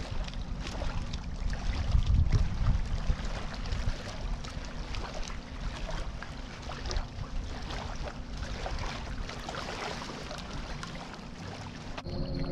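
Small waves lapping and splashing against a rocky lakeshore, with gusty wind rumbling on the microphone.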